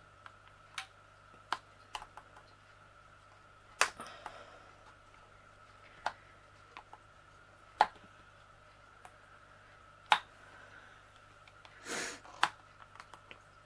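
Flexible metal tabs on the back of a picture frame being pressed flat one at a time: sharp separate clicks a second or two apart, over a faint steady hum.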